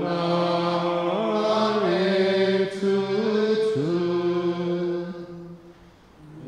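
A man's voice chanting a slow Jodo Shinshu liturgical melody, holding long notes that step up and down in pitch. The phrase fades out about five seconds in, and the next phrase begins right at the end.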